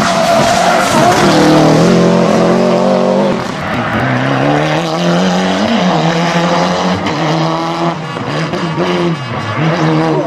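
Turbocharged four-cylinder Group A rally cars, a Subaru Impreza and then a Mitsubishi Lancer Evo III, driven hard on a tarmac stage. The engine note climbs with each burst of acceleration and drops back at gear changes and lift-offs, several times over.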